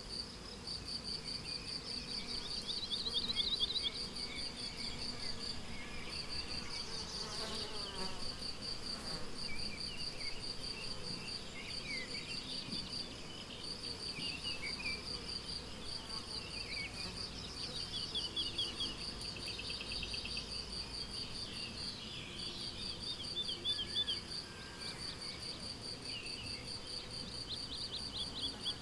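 Crickets chirping in a steady, high, rapidly pulsed song that breaks briefly every few seconds, with songbirds singing short sweeping phrases over it.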